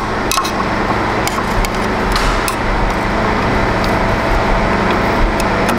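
Screwdriver loosening the screws on a large-format printer's print-head carriage base, with scattered metal clicks and ticks, over a steady hum.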